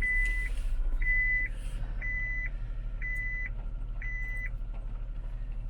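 A car's warning beeper sounding five even half-second beeps, about one a second, then stopping, over the low steady hum of the idling engine.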